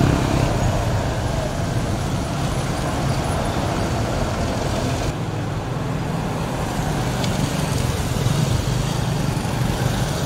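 Road traffic on a city street: vehicle engines running and cars passing, a steady traffic noise.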